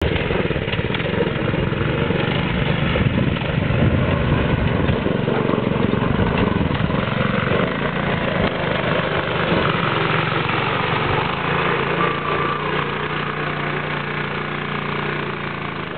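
Yerf Dog go-kart's small engine running hard through mud and water, uneven at first, then settling into a steady drone about two-thirds of the way in as the kart bogs down in the pit. The engine is straining against a clutch that is being torn up in the mud.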